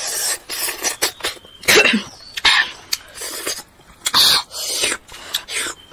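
A boy's loud, breathy mouth noises and short cough-like bursts, about seven in a few seconds, as he eats a mouthful of spicy egg curry and rice by hand.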